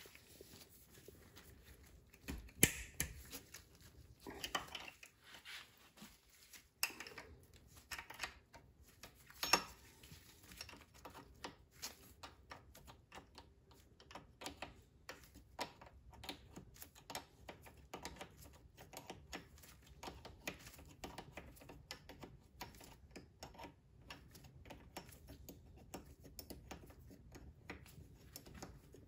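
Faint, fast, irregular clicking of a hand wrench ratcheting on the thermostat cover bolts of an outboard's cylinder head. There are a few sharper metal clinks in the first ten seconds, then a long, steady run of quick ticks as the bolt is backed out.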